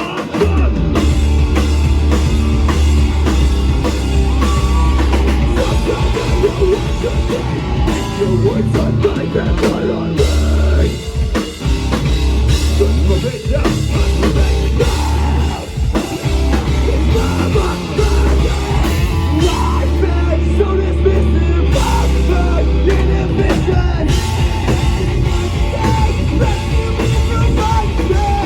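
Rock band playing live, with drum kit and a heavy bass line under the instruments.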